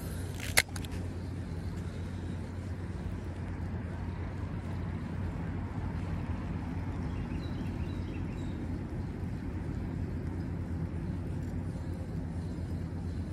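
A spinning reel's bail clicks shut once, sharply, about half a second in, right after a cast. Under it is a steady low outdoor rumble.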